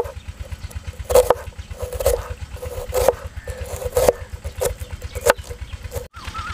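Steel chef's knife finely chopping onion on a wooden cutting board: irregular sharp knocks of the blade striking the board, the strongest about once a second with lighter taps between.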